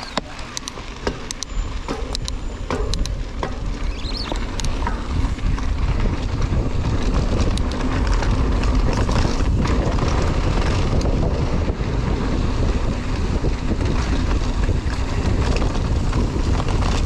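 Wind rushing over the microphone of a mountain bike's handlebar camera while riding, with tyre and trail rumble. Sharp clicks and rattles come in the first few seconds, and the rush grows louder over the first several seconds, then holds.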